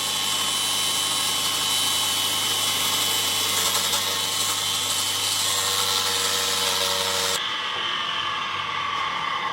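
Motor of a homemade wood-splitting machine running steadily with a hum and a high whir. The sound changes abruptly about seven seconds in.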